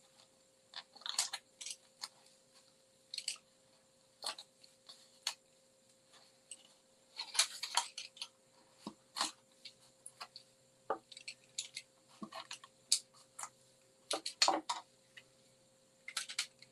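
A small cardstock box being handled and worked with a pointed tool: scattered paper rustles, light taps and small clicks as the backing is picked off its adhesive tabs. A faint steady hum lies underneath.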